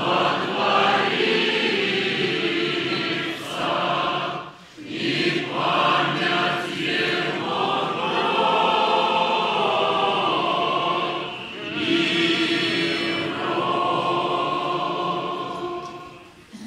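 Unaccompanied choir singing Orthodox church chant in long held phrases, with short breaks about four and a half and twelve seconds in. The singing fades out near the end.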